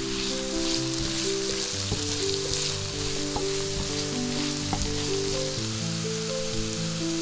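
Diced onion and red bell pepper sizzling in hot oil in a pan, stirred with a wooden spatula that taps the pan a few times. Background music with slow held notes plays over it.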